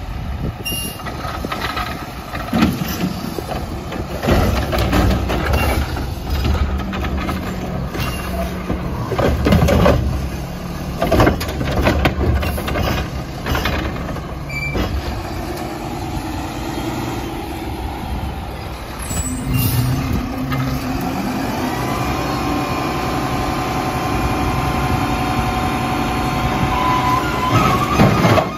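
Mack LR garbage truck with a Heil side-loading body at work, its engine running under a run of loud bangs and crashes as refuse is loaded and packed in the hopper. About two-thirds of the way in comes an air-brake hiss. Then the engine speeds up with a rising whine and settles into a steady hydraulic drone as the body's hydraulics work.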